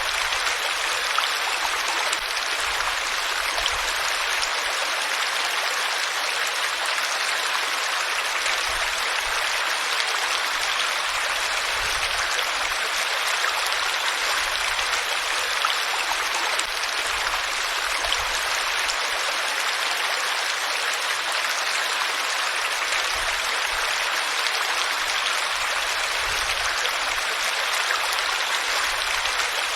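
Steady rushing of flowing water, a stream running over rocks, even and unbroken.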